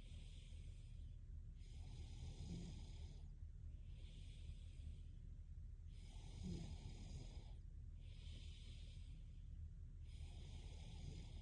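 A sleeping girl breathing slowly and audibly, a breath about every two seconds, with a light snore in some breaths. Faint, over a steady low hum.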